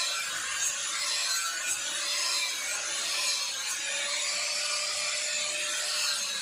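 Handheld angle grinder grinding a steel sword blade: a steady grinding hiss over the motor's whine, which holds its pitch and wavers slightly as the pressure on the blade changes.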